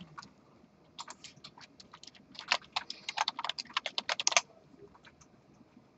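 Typing on a computer keyboard: a quick run of keystrokes starting about a second in and stopping a little after four seconds.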